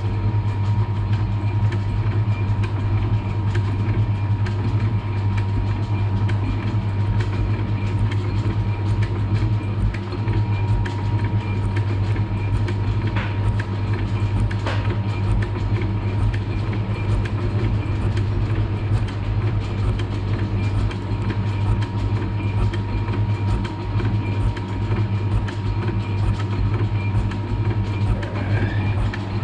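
Milling machine running steadily with a constant low hum, its pitch and level unchanging.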